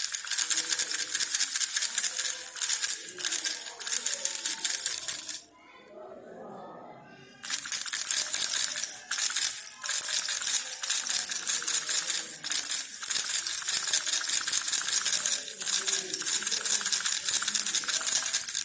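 Baby rattle shaken continuously, a dense fast rattling of small beads inside. It stops for about two seconds about five and a half seconds in, then starts again.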